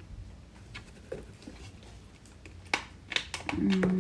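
Light clicks and taps of plastic vacuum cleaner parts and packaging being handled, with two sharper clicks about three seconds in.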